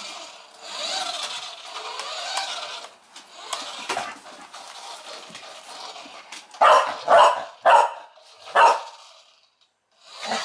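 Shetland sheepdog barking: four sharp barks about two-thirds of the way in, three close together and one a little later, after a few seconds of softer, wavering sounds.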